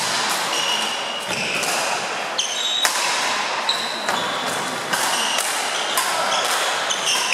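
Badminton rally: rackets striking a shuttlecock in sharp cracks several times, with short high squeaks of court shoes on the sports-hall floor in between.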